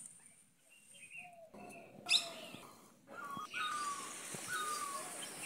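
A bird calling in a garden: a series of short, falling whistled notes repeated about once a second, getting higher and clearer after about three seconds. A sharp knock sounds once, just after two seconds in.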